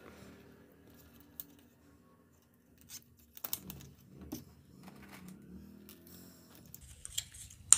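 Nylon cable ties being pulled tight and trimmed: scattered small plastic clicks and rattles, with one sharp click near the end.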